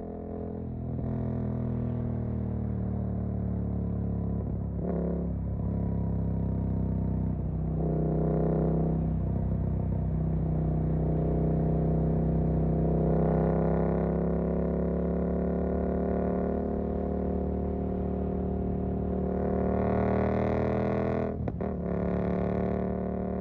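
Suzuki GSX-8S parallel-twin running through a Jeskap EVO aftermarket exhaust while under way, its pitch climbing slowly for the first half and then holding steady. There are short breaks in the note about five seconds in, around eight seconds and near the end.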